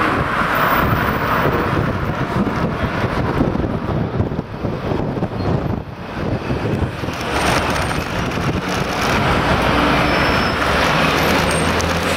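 City road traffic heard from a moving bicycle: a steady rush of car and bus engines and tyre noise. Near the end a low, steady engine hum comes in as the bike rides alongside double-decker buses.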